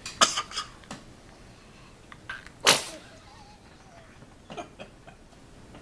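A baby sneezes once, sharply, about two and a half seconds in, with a mouthful of banana. A few softer clicks and smacks come near the start and again near the end.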